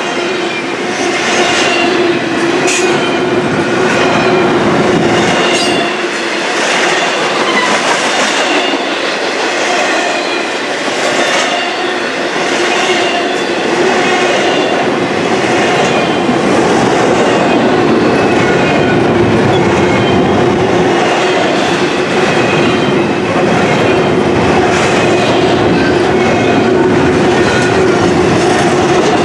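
Double-stack intermodal container train's well cars rolling past close by: a loud, steady rumble of steel wheels on rail with a low hum, occasional clacks and faint high wheel squeals coming and going.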